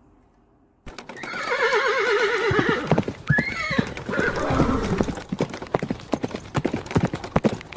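A horse whinnies with a wavering pitch about a second in. Galloping hoofbeats follow, clip-clopping in a quick, uneven rhythm.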